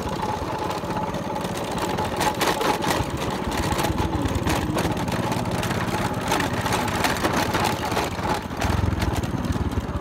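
Engine of the vehicle carrying the camera running steadily as it travels along a dirt road, a fast, even chugging.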